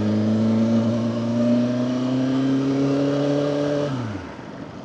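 Motorcycle engine pulling under throttle, its pitch rising slowly, then the throttle closes about four seconds in and the pitch drops away as the engine quietens.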